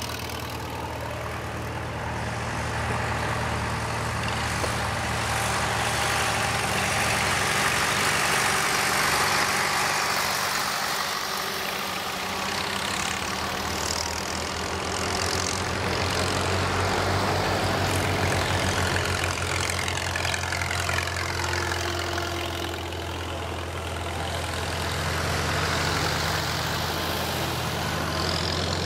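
Engines of a line of antique farm tractors running as they drive past one after another, the sound swelling and fading as each one nears and passes.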